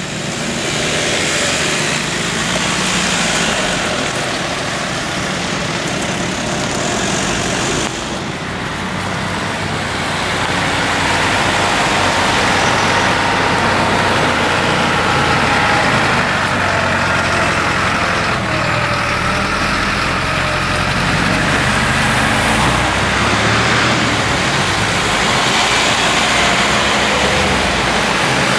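Steady motor vehicle noise: a low engine hum under a continuous rushing haze, dipping briefly about eight seconds in and then carrying on.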